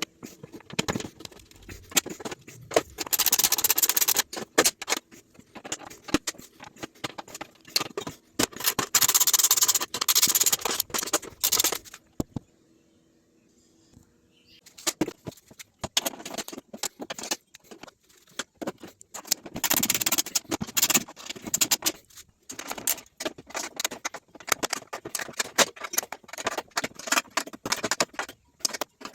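Hand work on metal parts: irregular clinks and knocks mixed with bursts of scraping or brushing, stopping for a few seconds about halfway through.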